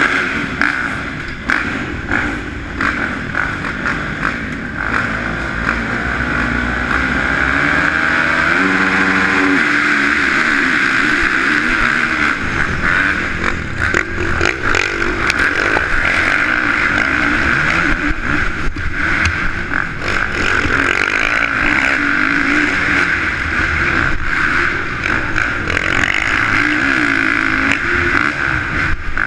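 Motocross bike engines at the start of a race. About eight seconds in the engine note climbs as the bikes launch, then the rider's own bike runs hard at high revs, rising and falling through the laps.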